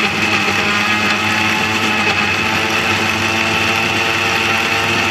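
Philips mixer grinder running at speed, its motor giving a steady high whine as the stainless-steel jar blends mango pieces, milk and ice.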